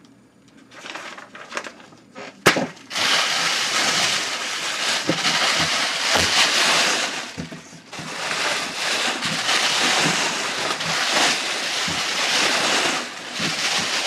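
Plastic air-cushion packing pillows rustling and crinkling loudly as hands dig through them in a cardboard shipping box, with one sharp click about two and a half seconds in.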